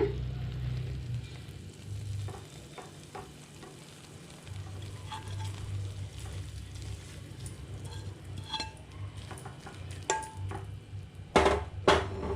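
Spoon scraping thick, cooked milk-cake mixture out of a pan into a bowl: scattered light scrapes and clicks, then two louder knocks of the spoon near the end.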